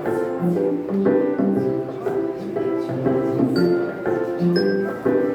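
Instrumental music: a melody of short, clear notes over a bass line in an even rhythm.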